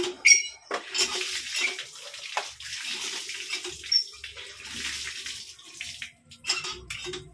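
Steel dishes being washed by hand: scrubbing and splashing water, with short clinks of steel plates and utensils against one another.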